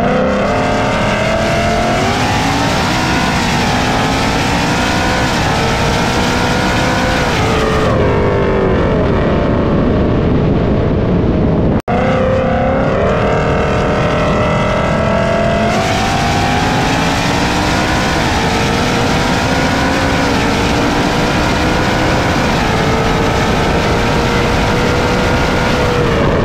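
Supercharged 5.0 V8 of a 2020 Mustang GT with an ESS G3X kit at full throttle. The engine note climbs through each gear and drops back at each upshift. It cuts out for an instant about twelve seconds in, and a second hard acceleration run follows.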